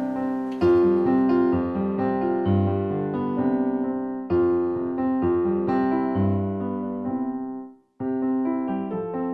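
Background piano music, notes and chords struck in a steady run; it cuts out for a moment near the end and starts again.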